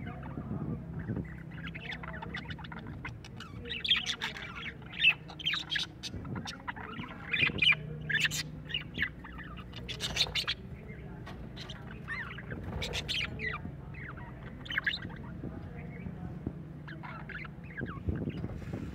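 Budgerigars chattering, with many short squawks and chirps in quick, irregular succession over a low steady hum.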